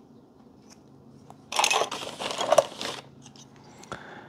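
Plastic packaging crinkling and rustling for about a second and a half in the middle as small circuit-board adapters are handled over bubble wrap and a zip-lock bag, followed by a single light click near the end.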